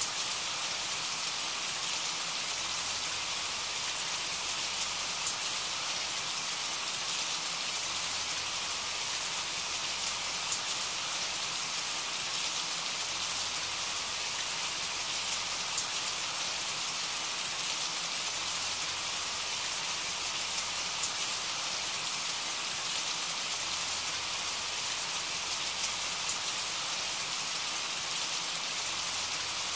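Steady rain falling: an even hiss with a fine patter of drops.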